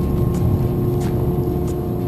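Boat engine running steadily: a low rumble under a steady hum, with faint ticks about every two-thirds of a second.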